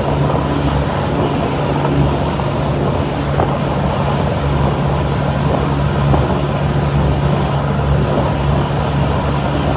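Motorboat engine running steadily underway, a constant low drone, with wind rushing over the microphone.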